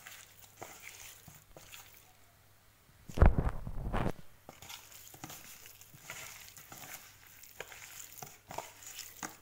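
A hand squishing and mixing raw chicken strips with spice powders in a plastic tub: soft wet squelches and light clicks, with a louder thump and rustle about three seconds in.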